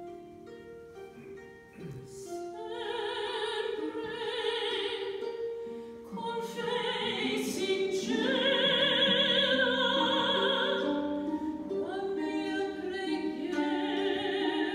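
Operatic soprano singing with wide vibrato over concert harp accompaniment. The harp plays alone for the first two seconds before the voice comes in and builds in loudness.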